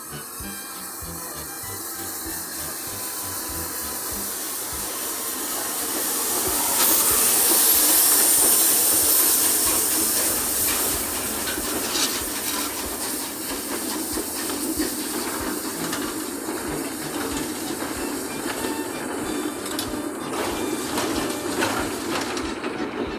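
A steam train passing: a loud hiss of steam builds to its peak about seven seconds in, then settles into a steady hiss over the rumble of the train.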